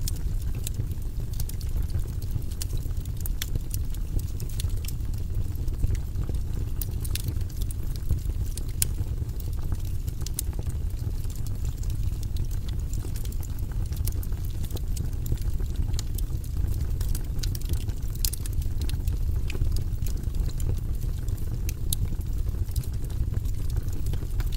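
Wood fire burning in a fireplace: a steady low rumble under irregular sharp crackles and pops from the burning logs.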